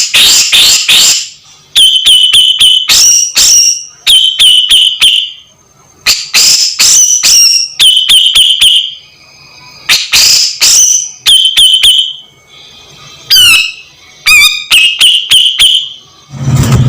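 Grey-cheeked bulbul (cucak jenggot) calling loudly in repeated bursts of a second or two, each a quick run of high notes, with short pauses between.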